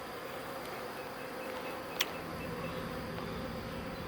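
A swarm of honey bees buzzing steadily as they go into the hive box they were shaken into. A single sharp click about two seconds in.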